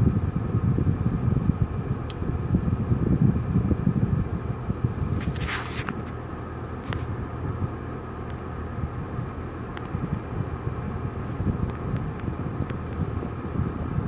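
Steady low rumble of an idling car engine. A short burst of hiss comes about five and a half seconds in.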